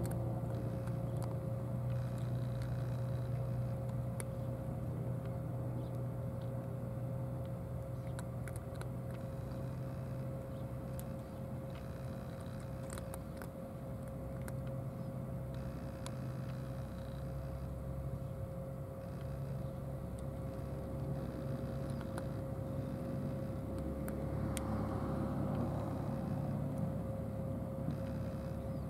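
Steady mechanical drone: a constant low hum with a steady higher tone above it, like an engine or machine running without change. A wider rushing noise swells briefly about 25 seconds in, and faint light ticks come and go.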